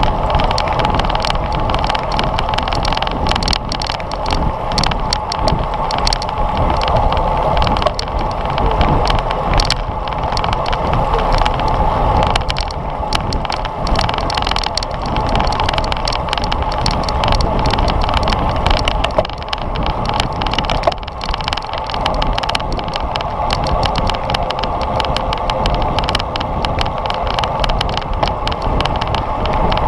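Wind rushing over a GoPro's microphone on a racing bicycle at speed, with tyre and road noise and a constant rattle of rapid clicks.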